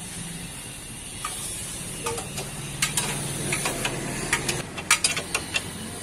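Metal clicks and clinks of a ring spanner turning a nut on a motorcycle's rear brake fittings, coming irregularly several times a second in the second half. A low steady hum runs underneath and stops a little after the middle.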